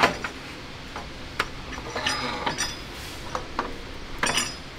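Steel parts of a WW2 Grant tank's volute spring suspension unit clinking and knocking together as the spring housings are handled into place. A few separate sharp metal clinks, some with a short ring, the busiest cluster about two seconds in and another near the end.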